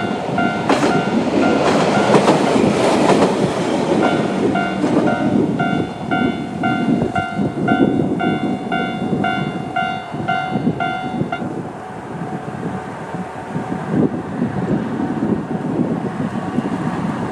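A YR-880 diesel railcar passes over a level crossing, its wheels clacking over the rail joints. The crossing warning bell dings at a slow, even tempo of about two strikes a second, then stops about eleven seconds in while the railcar keeps rumbling, a little quieter.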